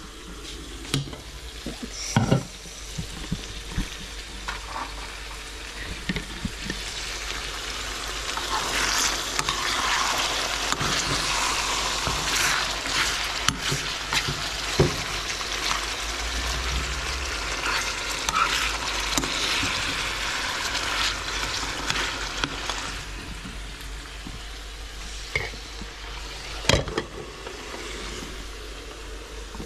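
Pieces of lamb sizzling as they fry in a pan, the sizzle growing louder through the middle of the stretch, while a utensil stirs them and now and then knocks against the pan.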